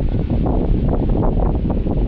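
Strong, gusty wind buffeting the microphone: a loud, low rumbling rush that rises and falls without a break.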